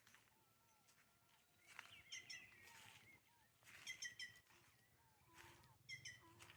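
Mixed wild birds of the caatinga scrubland singing and calling, faint. Short whistled chirps and a long held whistle come early, with louder clusters of rapid chirping notes around two, four and six seconds in.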